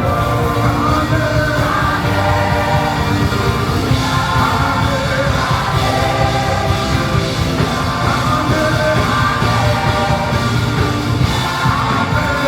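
Live band playing loud upbeat gospel praise music with singing over a heavy drum and bass beat.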